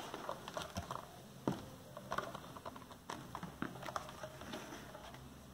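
Faint handling noise of a 10-inch car subwoofer being turned and touched by hand: scattered light taps, clicks and rubbing on its basket and cone surround, with one sharper tick about a second and a half in.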